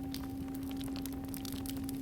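A singing bowl ringing on after a strike, a steady low tone with a fainter higher overtone, over the irregular crackle and pops of a campfire.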